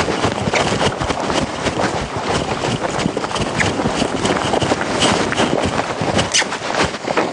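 Hoofbeats of two horses running on a sandy arena floor, a fast, uneven run of dull thuds.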